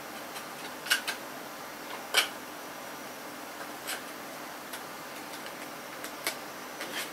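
Thin plastic CD cases clicking and clacking as they are handled and opened, a handful of sharp separate clicks, the loudest about one and two seconds in, over a faint steady hiss.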